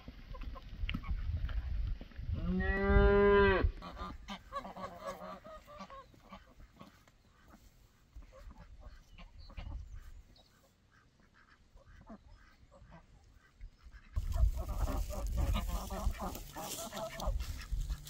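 Domestic geese honking as they walk: one loud, long call about three seconds in, scattered fainter calls after it, and a busier stretch of calling near the end.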